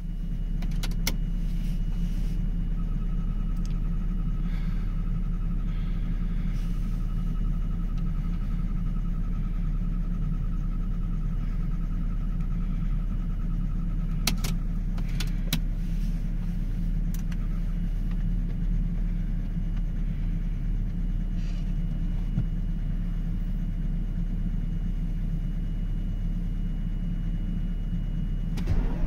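Mercedes-Benz E320 CDI diesel engine being turned over by its starter in −26 °C cold: a steady, heavy cranking rumble that goes on for nearly half a minute without the engine catching, a failed cold start. The cranking stops about a second before the end.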